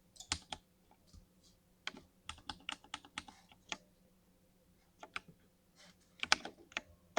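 Mechanical gaming keyboard with linear switches being typed on: irregular runs of key clacks with short pauses, and a quieter gap of about a second past the middle.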